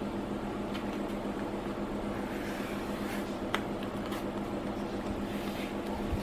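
A steady low hum of room machinery, with a hand brushing and lightly tapping over a taped-down sheet of painting paper; one sharper tap about three and a half seconds in.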